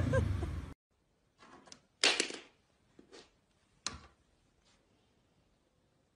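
Loud mixed sound with a voice in it cuts off abruptly under a second in. Then a quiet room with a few light taps and knocks, the sharpest about two seconds in and another near four seconds.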